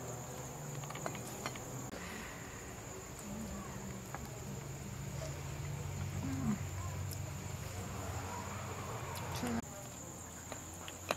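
Crickets chirping steadily in a continuous high-pitched drone, with scattered soft clicks and rustles of crusty bread being pulled apart and eaten close by.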